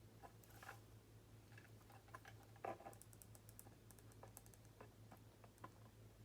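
Near silence with faint, scattered small clicks and taps of wire and hand tools being handled, the loudest about two and a half seconds in, over a steady low hum.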